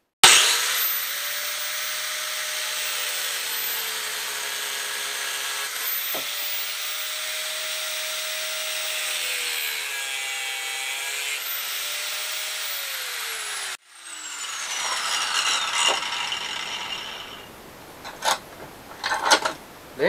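Angle grinder with a thin cut-off wheel cutting through steel rod held in a vise: a loud, steady high whine whose pitch dips twice as the wheel bites into the metal. It stops about 14 seconds in, then the wheel spins down with a long falling whine, and a few light metallic clinks follow.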